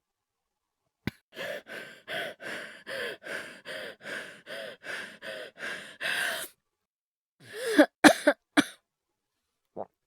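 A man's acted coughing fit: a rapid, even string of short hacking coughs, about three a second for some five seconds, then a pause and a few harder, louder coughs.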